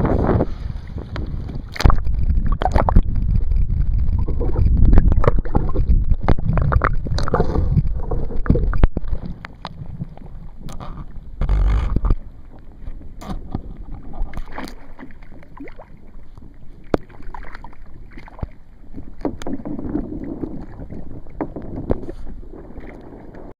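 Sea water splashing and slapping around a kayak hull, with wind buffeting the microphone and scattered knocks. The wind rumble is loud for the first nine seconds or so and then drops away, leaving quieter water sounds.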